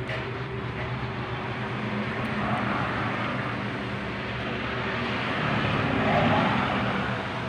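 Steady engine hum of passing traffic, swelling twice, about two and a half seconds in and again around six seconds.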